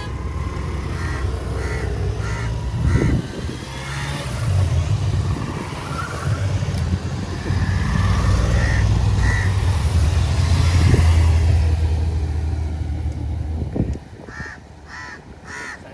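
Low, steady rumble of motor vehicles on the road that stops about fourteen seconds in, with a few faint higher calls above it early on and near the end.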